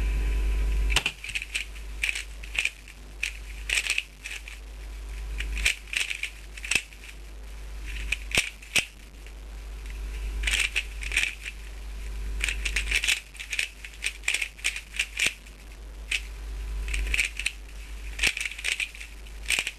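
Dayan GuHong 3x3 speedcube being turned fast during a timed speedsolve: dense, irregular plastic clicking and rattling of the layers, in quick flurries with short pauses. A steady hum fills the first second before the turning starts.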